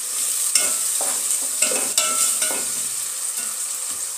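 Chopped onions sizzling in hot oil in a stone-coated pot while a wooden spoon stirs them, with several scraping strokes of the spoon in the first couple of seconds before the sizzle carries on steadily. The onions have just been salted and are frying toward golden brown.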